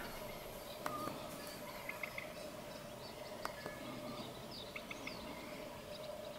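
Scattered short bird chirps and calls over a steady faint hum.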